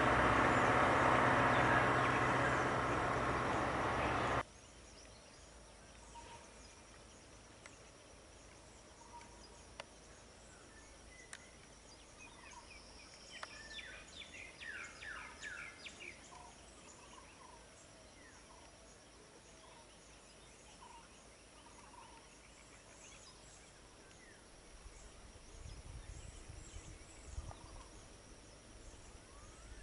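A car driving past on the road, loud for about the first four seconds and then cut off abruptly. Then quiet forest ambience with scattered bird calls, a steady high insect hum, and some low rumbling near the end.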